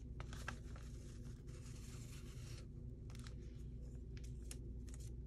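Faint rustling and light clicks of paper being handled, over a steady low hum.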